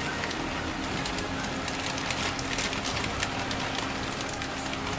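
Hot sauté pan of mushrooms sizzling and crackling as shredded vegetable slaw is shaken into it, over a faint steady low hum.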